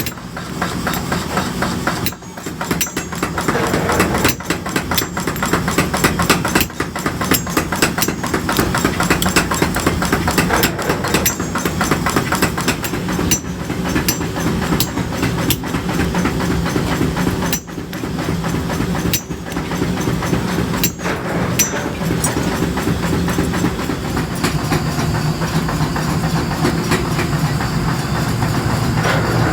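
Workshop machinery running steadily with a dense, fast rattling clatter and a low hum.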